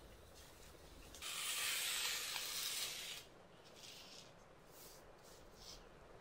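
Gloved hand handling things on a desk: a scraping, rubbing noise lasting about two seconds, then a few faint handling sounds.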